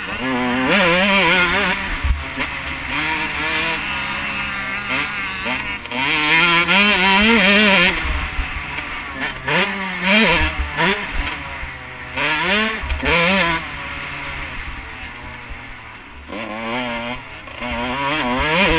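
2012 Husqvarna CR two-stroke motocross bike ridden hard, its single-cylinder engine revving up and dropping back again and again as the rider accelerates, shifts and rolls off.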